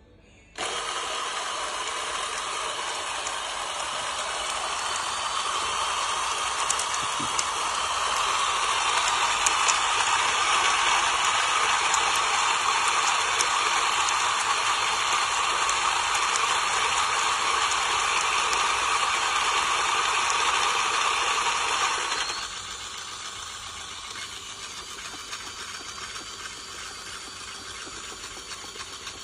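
HiBREW H10A espresso machine running, a steady mechanical rattle and hiss that starts suddenly and drops to a quieter run about 22 seconds in.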